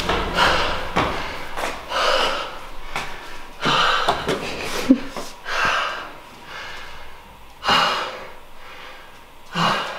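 A man panting and gasping for breath in deep, noisy breaths every second or two, winded from running and climbing seven floors of stairs. A sharp knock comes about five seconds in.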